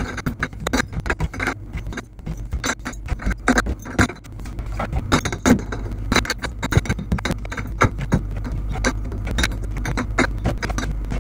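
Small glass beer bottles clinking against each other as they are set in rows in a bar fridge. There are many irregular clinks over a steady low hum.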